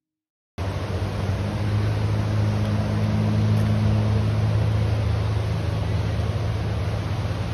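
An engine running steadily: a low hum under a rushing noise, cutting in abruptly about half a second in.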